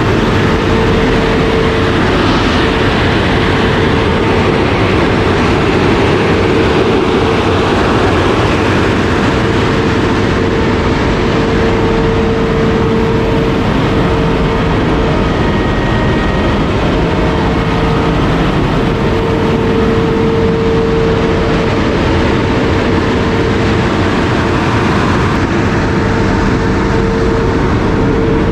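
Concrete pump truck working while a mixer truck unloads into it: a loud, steady diesel engine drone with a constant hum as the concrete is pumped.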